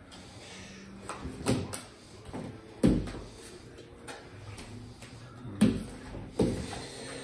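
Playing cards slapped and pushed across a plastic-covered tabletop during a fast card game: several sharp taps and thumps, the loudest about three seconds in.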